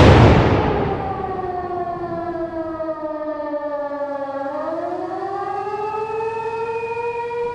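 Air-raid siren wailing, its pitch sliding slowly down and then rising back up and holding steady. At the start the rumble of a loud boom dies away.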